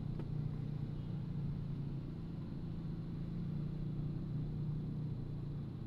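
Steady low drone of a vehicle in motion: engine and road noise running evenly, without any change in pitch.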